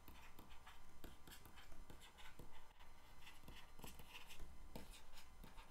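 A stylus writing on a tablet: faint, irregular taps and scratches as words are handwritten.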